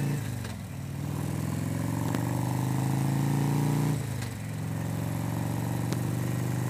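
Harley-Davidson touring motorcycle's V-twin engine pulling under way, heard from on the bike over wind rush. The engine note drops briefly at the start and again about four seconds in, as with gear changes, then settles back into a steady beat.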